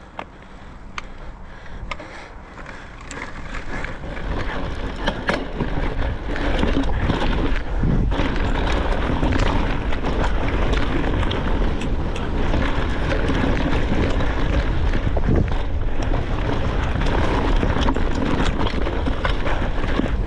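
Deviate mountain bike on downhill tyres ridden fast over a rough, rocky trail: wind rushing over the camera microphone, tyres rumbling and frequent sharp clicks and knocks from the bike. The noise builds over the first few seconds as speed picks up, then stays loud.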